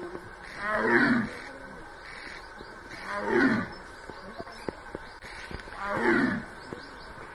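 Tiger roaring three times, about two and a half seconds apart, each call falling in pitch.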